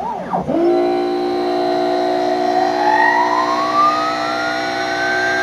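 Water-cooled CNC router spindle starting up. It comes on suddenly with a brief wavering pitch, then its whine climbs steadily for about four seconds and levels off at full speed over a steady hum of several tones.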